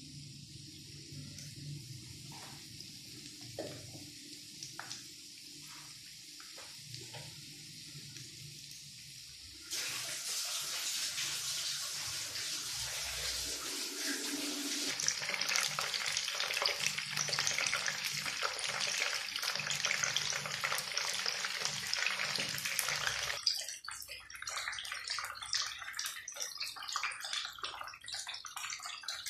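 Battered chicken drumsticks deep-frying in hot oil, a steady sizzle with fine crackling. The sizzle jumps suddenly louder and denser about a third of the way in, and thins to sparser crackling near the end.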